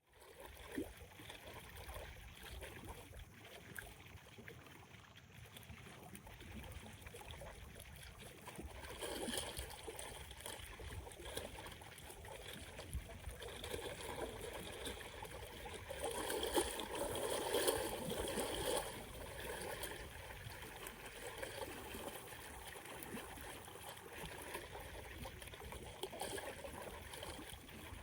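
Small wind-driven waves lapping and splashing along a lakeshore, with strong wind rumbling on the microphone. The water grows louder for a few seconds about two-thirds of the way through.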